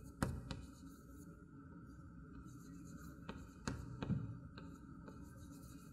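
Chalk on a chalkboard as handwriting is written: faint scratching with a series of light taps as the chalk strikes the board.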